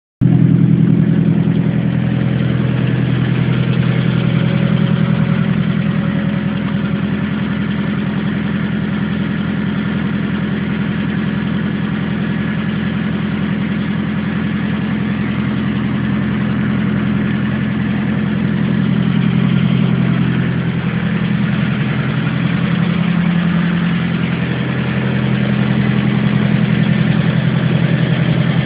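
Vehicle engine idling steadily, with a slight wavering in pitch and level about two-thirds of the way through; the owner wonders whether it is making an abnormal noise.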